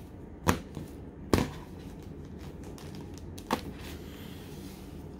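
A stack of foil booster packs handled and knocked against a tabletop: three short sharp taps, the first about half a second in, the second just under a second later, the third about two seconds after that.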